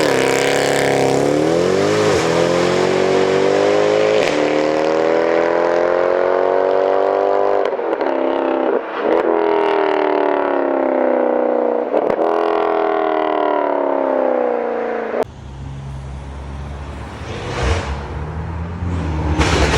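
A performance car's engine running hard, its pitch dropping abruptly every few seconds at each gear change and then climbing again. About three-quarters of the way through, the high note cuts off, leaving a lower, quieter rumble with a couple of sharp cracks near the end.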